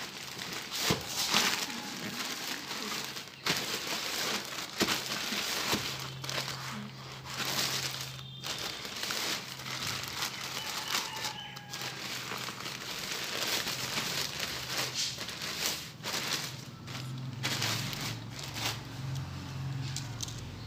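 Plastic courier mailer bag crinkling and rustling as hands press, lift and turn it over, with many irregular crackles.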